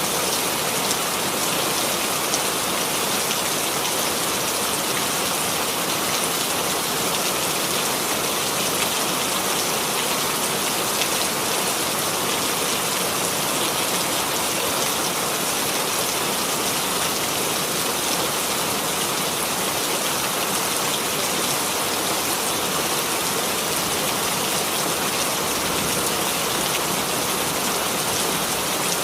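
Steady rainfall: a continuous even hiss of rain falling on a surface, with fine drop patter and no thunder.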